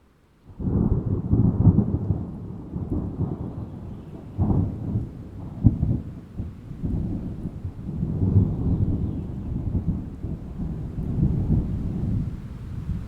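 Thunder: a sudden loud crack about half a second in, then a long low rumble that swells and fades with several sharper peaks, over rain.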